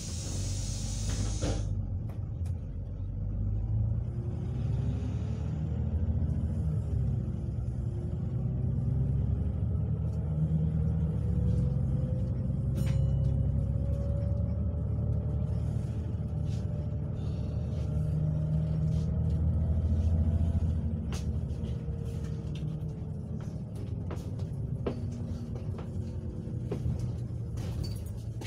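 Bus engine and drivetrain running as the bus drives along, a steady low rumble with a faint whine that climbs slowly in pitch as it gathers speed, dipping once briefly. Light rattles and clicks from the bus's body sound throughout.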